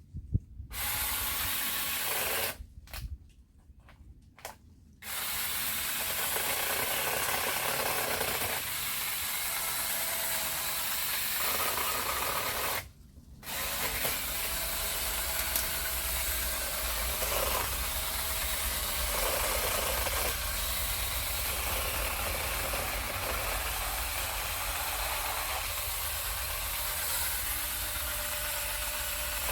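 Small cordless 15 cm chainsaw running with its motor and chain whirring. It stops and restarts several times about three to five seconds in, then runs on with one short break near the middle.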